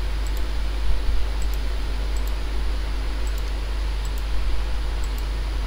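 Steady hiss with a low electrical hum underneath, and faint short ticks repeating about every half second.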